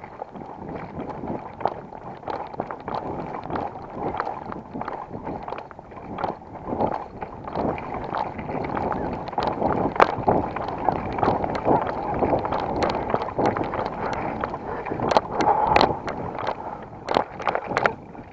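Hurried footsteps on a dirt path with gear jostling, picked up by an action camera worn on the body: a dense run of irregular knocks and rustles, with a few sharper knocks near the end.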